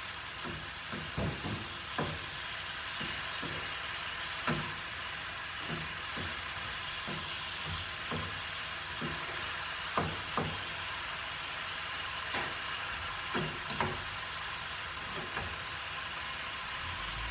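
Vegetables sizzling in a metal frying pan over a high gas flame as their water cooks off, stirred with a wooden spatula that knocks and scrapes against the pan at irregular intervals.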